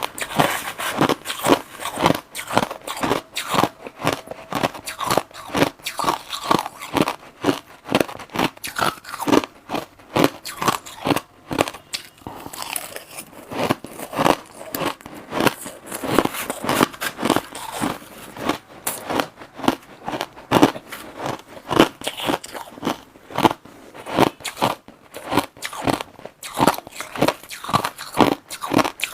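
Close-miked crunching of crushed ice being bitten and chewed, a rapid, irregular run of crunches several times a second.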